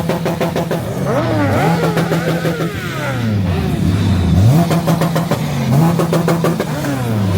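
Motorcycle engine being revved for a sound check, its pitch repeatedly rising, holding and dropping back.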